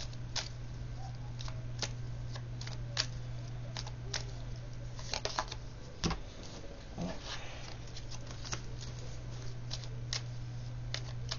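Oracle cards being shuffled and handled in the hands: a run of irregular light clicks and snaps of card edges, with a steady low hum underneath.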